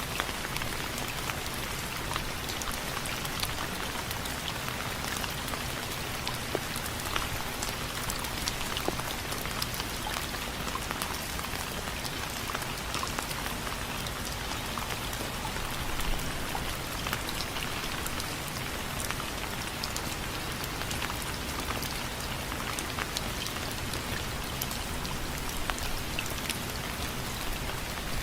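Steady rain, with many close drops tapping on a window frame over a constant hiss of rainfall.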